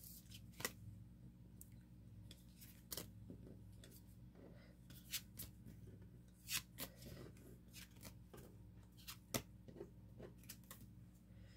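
Faint, irregular light clicks and taps of photocards being handled and sorted, about a dozen spread over the stretch.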